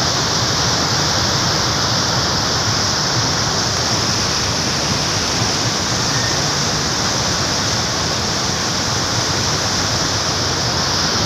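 Churning wake and propeller wash of a river launch under way: a steady rush of water that does not change.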